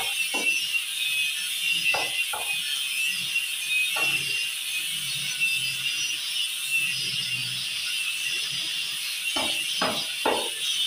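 Sharp knocks of a hand tool struck against the boat's wooden hull, in small groups: two at the start, two at about two seconds, one at four seconds and three near the end, over background electronic music.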